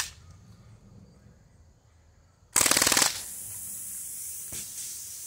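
A Crosman full-auto CO2 BB rifle fires one short, very fast burst of about half a second, a couple of seconds in, after a single sharp click at the start. Right after it comes a steady hiss from a punctured pop-bottle target spraying out its contents.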